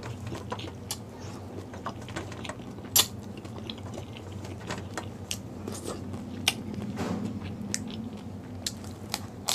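Close-up eating sounds: chewing with scattered sharp clicks and crunches from pani puri, and fingers picking at a metal tray, over a steady low hum.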